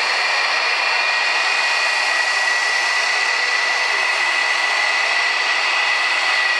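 RF-4 Phantom's J79 turbojet engines running: a steady high whine over a loud, even hiss.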